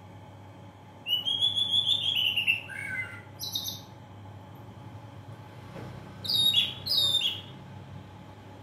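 A bird calling: a run of quick falling chirps about a second in, then two short falling calls a little past the middle.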